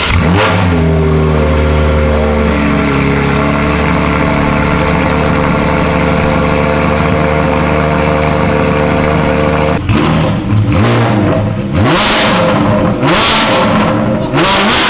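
Porsche 718 Cayman GT4's flat-six running on a cold start through a Dundon Motorsports Cracked Pretzel Inconel exhaust, echoing in the garage. It holds a high, steady fast idle that drops a step about three seconds in. In the last five seconds come several sharp throttle blips that rise and fall.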